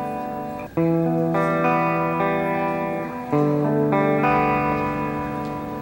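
Film score music: a guitar with effects playing slow, sustained chords, each ringing on for a second or more before the next is struck.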